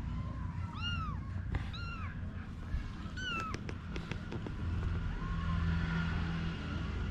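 Kitten mewing three times, short high-pitched mews about a second apart, over a steady low rumble.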